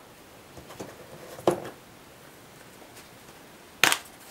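Faint hand-mixing sounds in a glass bowl with a short knock about a second and a half in, then a sharp click near the end as a black pepper container is picked up and opened.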